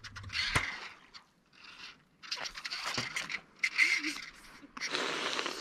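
A fishing reel working against a freshly hooked fish: a rasping buzz in four bursts of up to about a second each.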